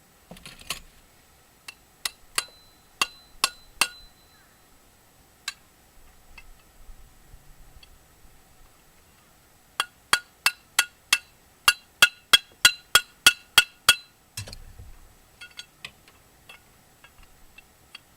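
Metal striking metal: sharp ringing clinks, a few scattered ones, then a quick even run of about a dozen at roughly three a second, followed by a heavier clunk, as scrap brass plumbing fittings are worked apart.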